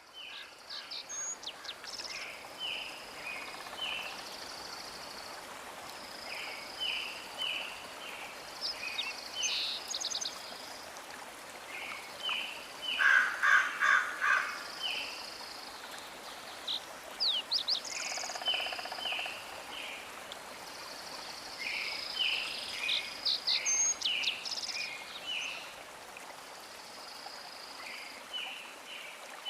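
Birds chirping in repeated short bursts, with a louder rapid buzzy trill about halfway through, over a steady rushing hiss like running water.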